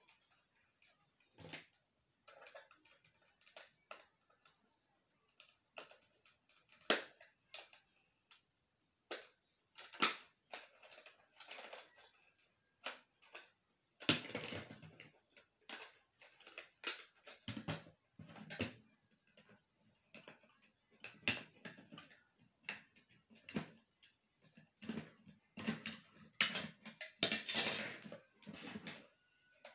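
Irregular clicks, knocks and scraping of hard plastic as a fan-type LED bulb's white plastic housing and folding blades are handled and taken apart, with longer stretches of scraping about halfway through and near the end.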